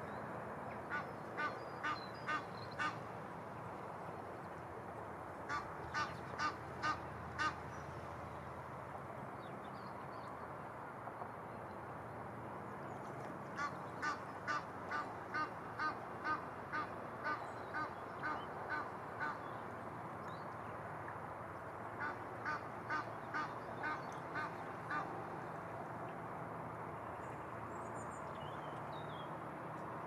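Waterfowl calling in bouts of short repeated honks, about two a second, four to a dozen at a time, over the steady rush of flowing river water.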